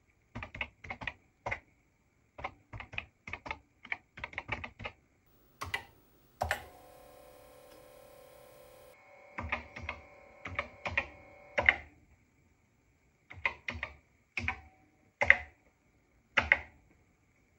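Keystrokes on a Commodore PET 2001-series keyboard, typed in short quick runs. About six and a half seconds in, a steady hum from the Commodore 2031 disk drive runs for a couple of seconds as the drive is accessed, then the typing resumes.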